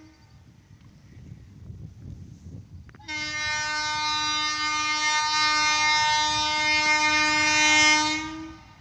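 Horn of an approaching Vande Bharat Express trainset: one long, steady, loud blast of about five seconds, starting about three seconds in and fading out near the end. Before it, only a low wind rumble.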